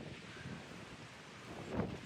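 Wind buffeting the microphone, with a short thump near the end.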